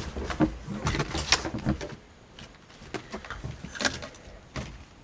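Hands handling small parts and wiring: scattered clicks, light knocks and rustling, thickest in the first two seconds, then sparser with a couple of sharper clicks near the end.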